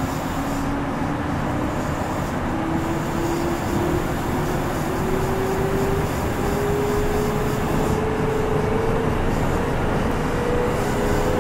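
Kintetsu 2410 series electric train, motor car Mo 2430, accelerating: a whine from its traction motors and gears rises steadily in pitch over the rumble of wheels on rail.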